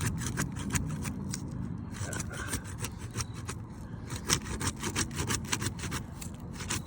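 Asphalt roof shingle's sealant strip being pried loose: a string of short scrapes and crackles as the tool works under the shingle and breaks its adhesive seal.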